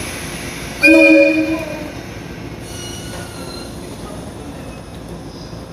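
JR East 185 series electric train sounding its horn once, a loud blast of about a second that comes about a second in, as a departure warning. A hiss and fainter steady tones from the train follow.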